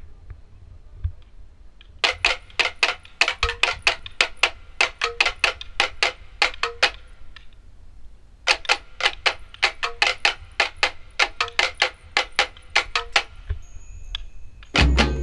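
Wooden fighting sticks clacking together in fast stick-on-stick drills, about five sharp strikes a second, in two runs with a short pause between. Music with a beat comes in near the end.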